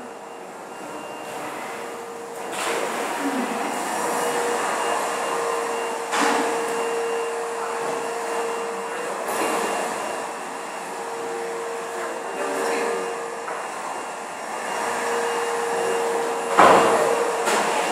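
Steady room noise with a constant mid-pitched hum, broken by a few sharp bumps, the loudest near the end.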